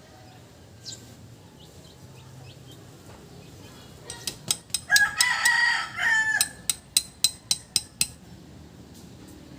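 A rooster crowing once, about a second and a half long, midway through. Around it comes a run of about a dozen sharp taps, some four a second, that start shortly before the crow and stop after it.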